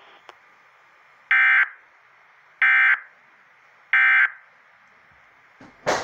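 Emergency Alert System end-of-message signal played through a radio speaker: three short, buzzy data-tone bursts about a second and a third apart, marking the close of the alert. A brief click just before the end.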